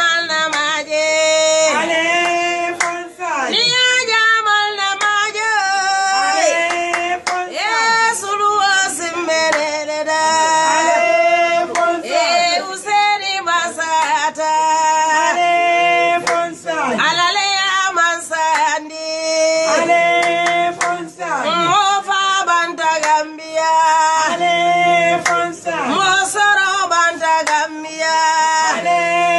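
A woman singing solo in a strong voice, holding long wavering notes and sliding down at the ends of phrases, with hand clapping.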